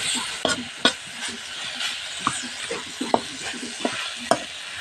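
Bitter gourd and masala sizzling in a metal kadhai while a metal spatula stirs them, clicking and scraping against the pan about twice a second over a steady frying hiss.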